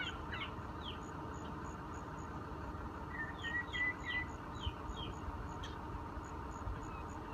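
Small birds chirping in short falling calls, a few near the start and a longer run about halfway through, with a faint high ticking about three times a second over a steady low rumble.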